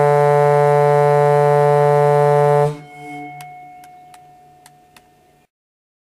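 Compressed-air ship horn sounding one steady, low, loud blast that cuts off sharply about three seconds in. Fainter tones linger after it, with a few light clicks.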